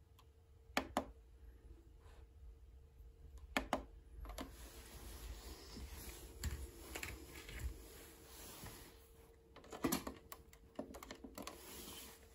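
Quiet clicks and handling rustle from an Audiocore AC9900 car radio head unit: its control knob is pressed, then a cable plug is pushed into the front AUX IN jack with a sharp click about ten seconds in. A faint steady tone runs underneath.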